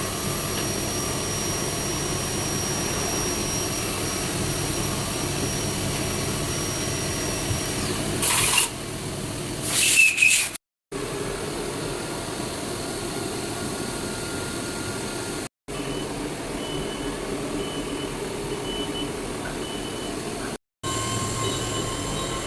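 CNC machining centre running while milling a metal automobile manifold: a steady mechanical hum with a thin high whine. Two short, loud bursts of hiss come around the middle, and the sound cuts out abruptly for a moment three times.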